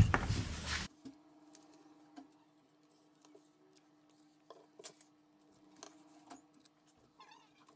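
A short burst of hiss that cuts off abruptly just under a second in. Then near silence with a faint steady hum and a few soft clicks and scrapes: a thin plastic card being slid along the seam of a smartphone's glued glass back cover to loosen the adhesive.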